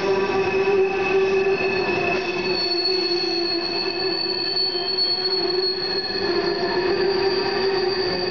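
Norfolk Southern coal train's open-top hopper cars rolling past on curved track, their wheels squealing steadily with several held tones over the rolling rumble; a higher, piercing squeal joins about two and a half seconds in. The squeal comes from the wheels grinding against the rails through the curve.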